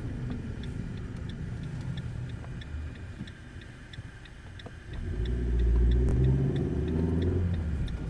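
A car's turn-signal indicator ticking evenly inside the cabin, about three ticks a second, over low engine and road rumble. About five seconds in, the engine note rises and grows louder as the car accelerates.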